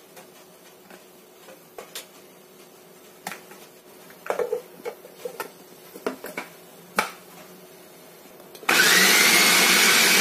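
Hard plastic clicks and knocks as a food chopper's lid and motor unit are fitted onto its bowl. Near the end the Mitochiba electric food chopper switches on with a loud whirr, its motor whine rising in pitch as it spins up, chopping steamed pumpkin pieces into a purée.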